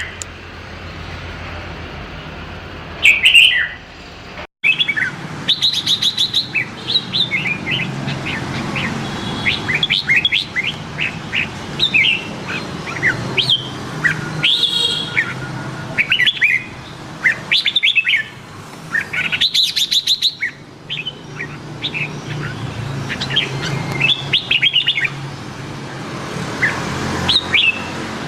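Red-whiskered bulbul singing in short, repeated chirping phrases with brief pauses between them, over a low steady hum.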